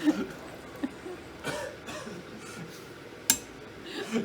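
A strainer spoon knocking and clinking against a pot while vegetables are lifted out of soup, with one sharp knock about three seconds in, and a short soft chuckle at the start.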